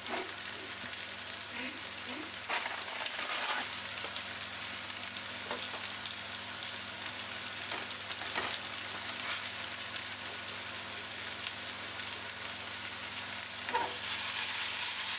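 Tofu cubes frying in oil in a nonstick pan, a steady sizzle as they caramelise and form a crust, with a few light clicks of a plastic spatula stirring in the wok. Near the end the sizzle gets louder as the tofu pan is tossed.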